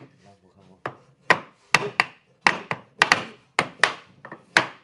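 Hammer or mallet knocking on a wooden frame, about a dozen sharp, irregular strikes after a quieter first second, typical of tapping glued joints home.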